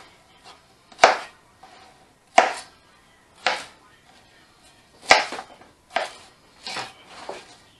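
Chef's knife slicing an onion and striking a plastic cutting board, about seven separate chops spaced unevenly one to two seconds apart.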